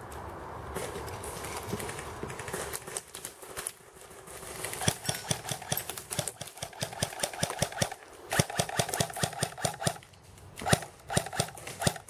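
Airsoft guns firing in bursts of rapid clicks, starting about four seconds in and broken by short pauses twice.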